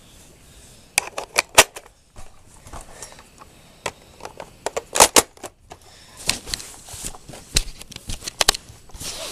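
Irregular plastic clicks and snaps of a Buzzbee Rapid Fire toy dart rifle being loaded by hand, with a few sharp snaps about a second in, the loudest about five seconds in, and a quicker run of clicks in the last few seconds.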